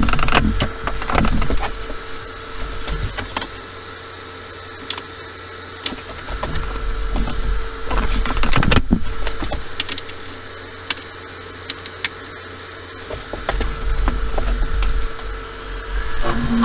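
Wood lathe running with a steady hum while tools and the tailstock are handled, giving scattered knocks and clatter; the loudest knock comes about nine seconds in.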